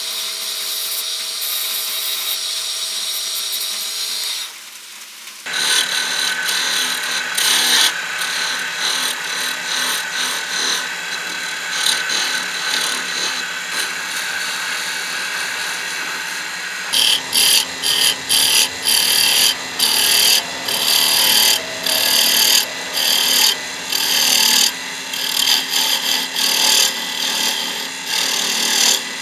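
A turning tool cutting dark hardwood spinning on a wood lathe: a steady cutting hiss over the lathe's hum. The sound jumps at edits about 5 s and 17 s in, and after the second edit the cutting comes in short bursts, about two a second, as the tool is pressed on and lifted off.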